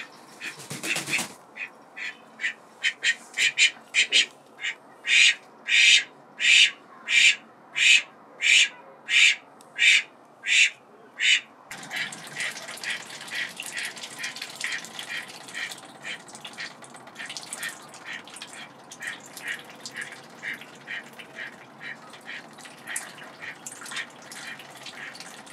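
A white domestic duck flapping its wings about a second in, followed by a regular run of loud, short quacks, about one and a half a second, growing louder. After an abrupt change, the ducks dabble with their bills in a shallow tray of water, making rapid soft clicks and splashes.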